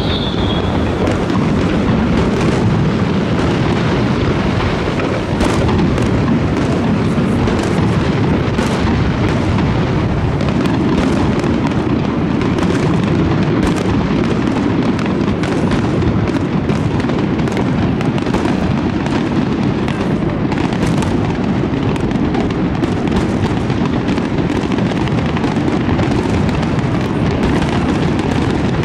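Aerial firework shells bursting in a dense, continuous barrage: many sharp bangs and crackles close on one another over a steady rumble, with no pause.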